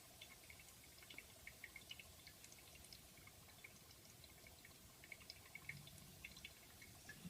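Near silence: faint, irregular small ticks over a faint steady hum.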